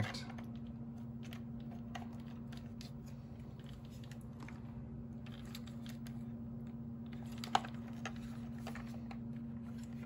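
Faint scattered clicks and taps of a cordless stick vacuum's plastic housing, circuit board and wiring being handled during disassembly, with one sharper click about seven and a half seconds in, over a steady low hum.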